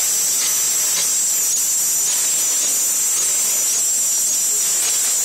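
NYS-800 double-twist packing machine running: a steady, high-pitched hiss with faint repeated clicks from its mechanism.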